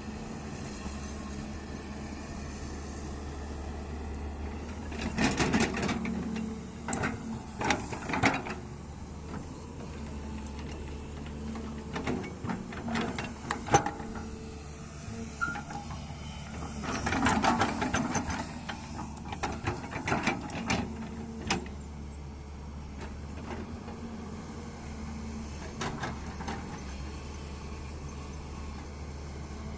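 Excavator's diesel engine running steadily, with two spells of clanking and scraping as the machine works, about five seconds in and again about seventeen seconds in, and a few single knocks in between.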